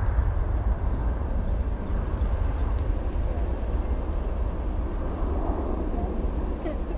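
Boeing 737 jet engines at takeoff power during the takeoff roll: steady jet noise with a deep rumble, easing slightly near the end.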